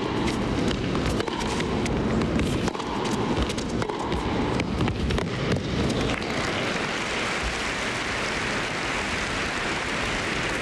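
Tennis rally with sharp racket strikes on the ball every second or so. About six seconds in the rally stops and the crowd applauds steadily.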